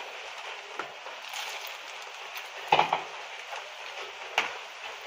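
Boondi being stirred into boiling sugar syrup with a steel spoon: a steady hiss from the bubbling syrup, with the spoon knocking against the pan three times, loudest about halfway through.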